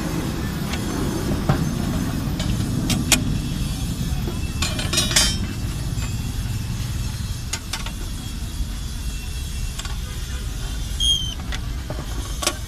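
Steel rebar clinking against the steel pins and hand bending bar of a stirrup-bending jig as the rod is bent, a few sharp metallic clinks scattered seconds apart over a steady low rumble.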